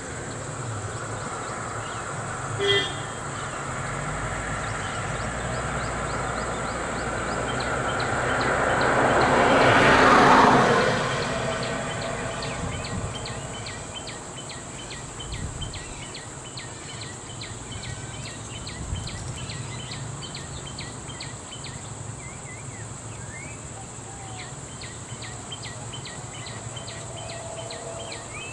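A short car-horn toot, then a car driving up close, growing louder to a peak about ten seconds in and fading. After that, insects chirping with a fast, regular high ticking.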